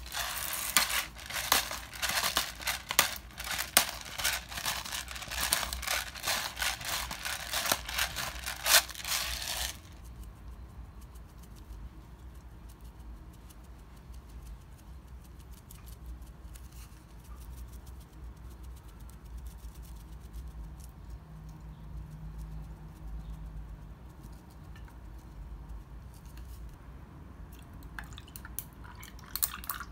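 Dense crinkling and crackling for about ten seconds, then it stops and only a faint low hum with a few scattered small clicks remains.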